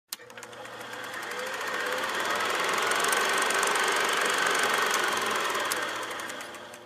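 Old cine film projector running, a fast, even mechanical clatter with film hiss that swells in over the first few seconds and fades out near the end.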